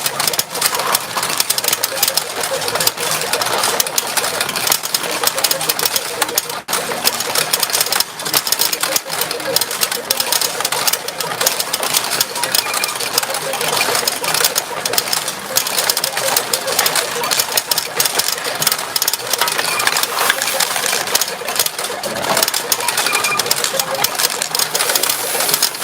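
Retro pachinko machines in play: a dense, continuous clatter of steel pachinko balls rattling through the machines and payout trays.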